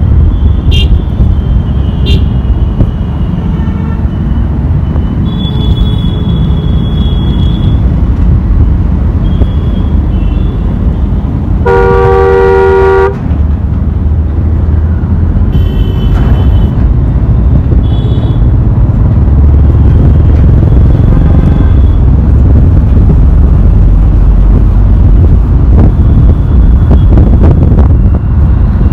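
Busy city road traffic heard from a moving vehicle: a loud, steady low rumble of engines and tyres. One long vehicle horn blast sounds about twelve seconds in, and several shorter, higher horn toots come before and after it.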